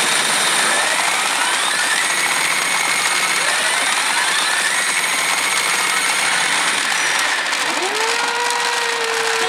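P Evangelion pachinko machine paying out during a jackpot: a dense, steady rattle of steel balls mixed with the machine's electronic effects, several rising sweeps, and near the end a tone that rises and then holds.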